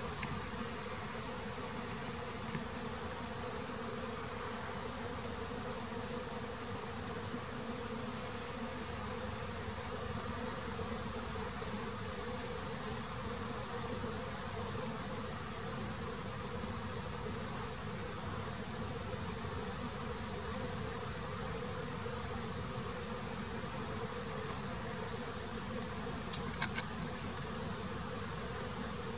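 Honeybees buzzing steadily in a dense, continuous hum at the hive, with a steady high-pitched tone above it. A couple of sharp clicks sound near the end.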